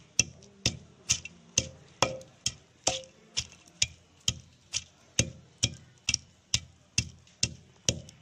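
Wooden pestle pounding onion, garlic, ginger and green chillies in a clay kunda (mortar): a steady knock about twice a second as the wood strikes the clay bowl through the chopped vegetables.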